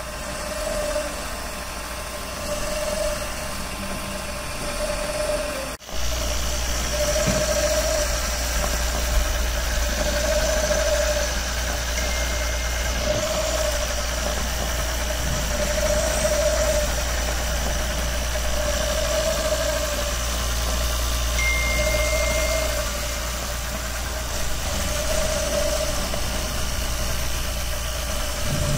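Small DC gear motor turning the aluminium drum of a homemade electrostatic plastic separator, running steadily: a hum with a tone that swells about every three seconds. The sound drops out briefly about six seconds in.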